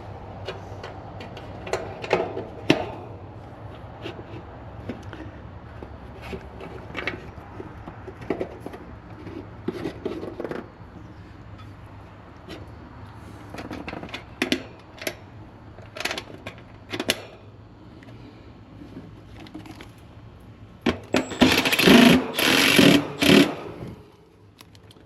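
Scattered short metallic clicks and taps of hands and tools working on a condenser's capacitor and its spade-connector wiring, over a steady low hum. A loud burst of rough scraping and rustling comes near the end.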